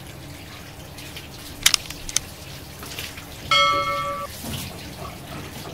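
Two mouse clicks followed by a short bell-like notification chime, the sound effect of a subscribe-button overlay. Beneath them, a faint steady rush of water from a hose running onto a soaked blanket.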